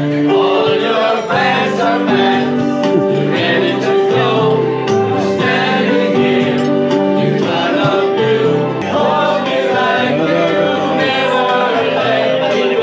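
Music with a group of voices singing together over sustained backing notes.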